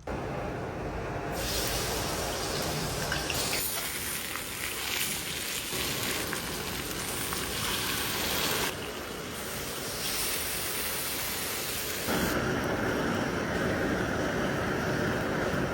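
Cooking in a pan: steady hissing and sizzling as the spicy fish head is fried and stewed, heard in several short segments that change abruptly.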